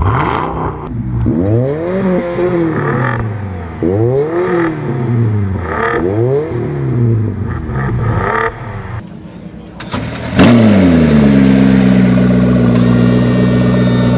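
Supercar engine revved in four quick blips about two seconds apart, each rising and falling in pitch. About ten seconds in, an engine starts with a loud bark and settles to a steady high idle.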